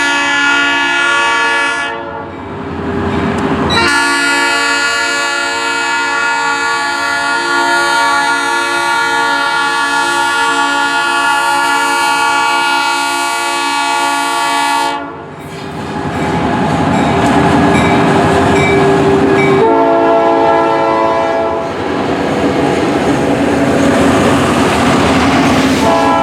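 Diesel locomotive air horn sounding a chord in blasts: a long one, a longer one of about eleven seconds, a short one, and another starting near the end, the pattern used at a grade crossing. Between the blasts is the rumble and clatter of the passing train.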